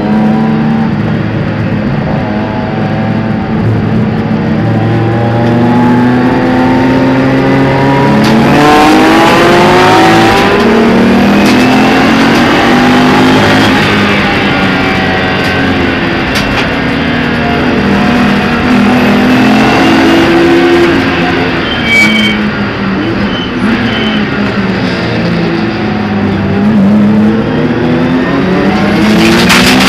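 Racing saloon car's engine heard from inside its stripped, roll-caged cabin, running hard on the track. Its pitch rises and falls again and again as the car accelerates and slows through the laps.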